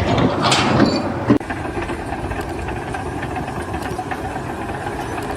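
An engine running steadily, with a sharp knock and a sudden drop in loudness about a second and a half in.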